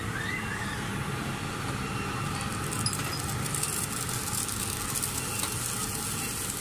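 Steady street traffic hum from passing vehicles. About halfway through, a high hiss of food frying on a hot pan comes in.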